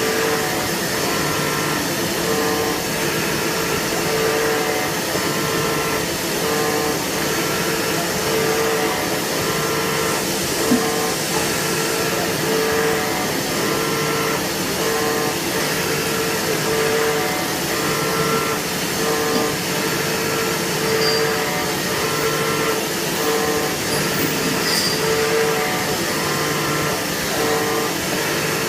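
CNC milling machine cutting a metal core box mold: a steady mechanical whir with a tone that swells and fades about once a second as the toolpath moves, and one sharp tick about ten seconds in.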